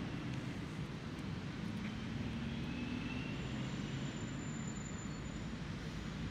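Steady low drone of a distant engine over an even wash of wind and surf noise.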